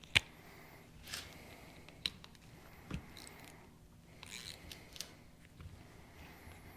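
Scattered small metallic clicks, taps and scrapes of hand tools and parts being handled while a Lucas CAV DPA diesel injection pump is taken apart, with a sharp click just after the start.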